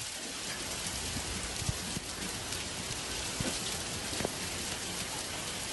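Hail pelting stone patio paving: a steady hiss of stones striking the wet pavers, with occasional sharper clicks.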